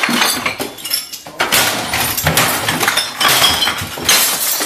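Things in a room being smashed: repeated crashes and breaking, with clinking debris.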